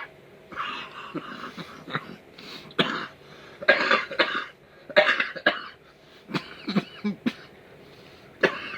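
A man coughing and clearing his throat in a series of harsh bursts, with a few short strained vocal sounds, reacting to the burn of a mouthful of wasabi.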